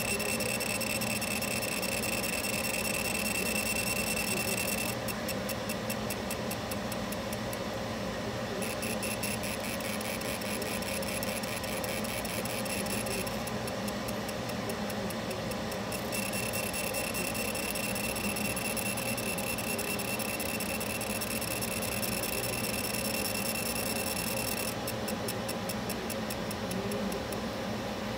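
Laser engraver marking a metal part: a steady high-pitched whine from the machine, broken by three stretches of rapid, even ticking as it works, over a constant low hum.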